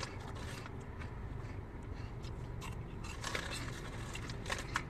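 Low steady hum of a car's cabin, with a few faint crunches and clicks about three seconds in and again near the end, from someone snacking.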